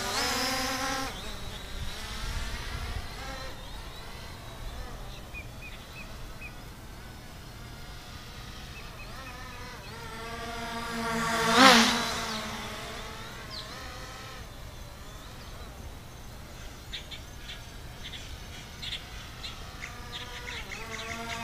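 SG-906 brushless quadcopter buzzing in flight. The buzz swells loud as it passes close, about twelve seconds in, then fades back as it flies away.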